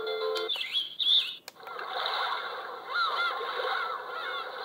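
Uptimus alarm clock playing its built-in bird-call alarm sound (sound 3): a busy run of short chirps and calls. A steady electronic chime from the previous alarm sound cuts off about half a second in, and a button click comes about a second and a half in.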